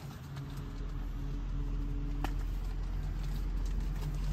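Motorcycle engine running steadily with a low hum, with a single sharp click about two seconds in.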